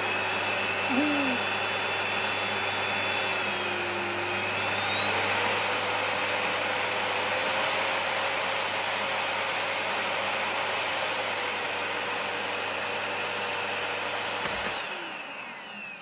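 Bosch GL 30 vacuum cleaner motor running at full speed on a test run, a steady whine over rushing air that climbs in pitch about five seconds in. It is switched off near the end and winds down with a falling whine. The motor runs again now that its sticking carbon brushes have been freed and reseated.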